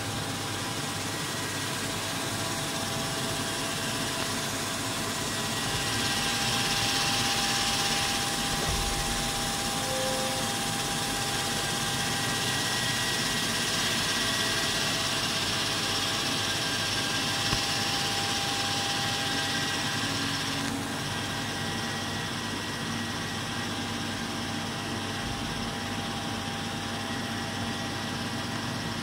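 Hurco VMX24 CNC vertical machining center running under power: a steady mechanical whir with a few steady whining tones, and a hiss that grows louder from about six seconds in and again for several seconds in the middle.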